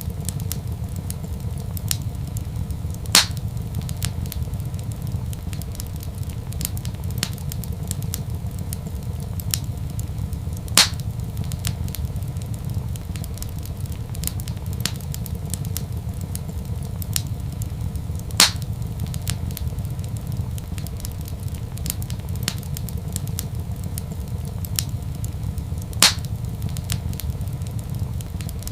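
Wood fire crackling in a fireplace: a constant patter of small crackles over a steady low rumble, with four louder pops spaced evenly about seven and a half seconds apart.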